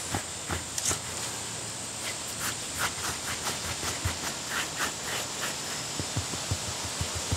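Kong rubber dog brush stroking through a short-haired pit bull–boxer's coat, a soft brushing rasp with each quick stroke over a steady hiss. Near the end come soft low thumps, about three a second.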